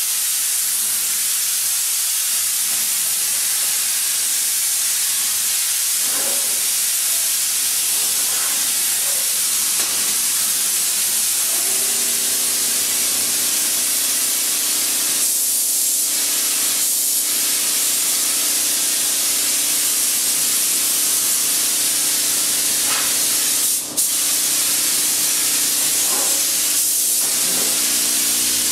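A steady hiss, joined about twelve seconds in by a hum of a few steady low tones that carries on; the sound drops out for an instant about twenty-four seconds in.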